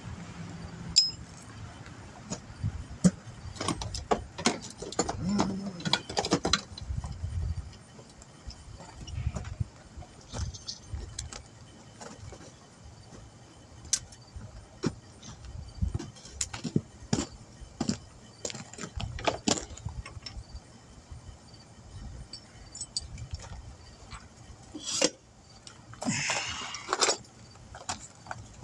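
Irregular metallic clinks and taps of tools and lead wheel weights being handled and fitted while a tire is balanced, with a louder, rougher noise about 26 seconds in.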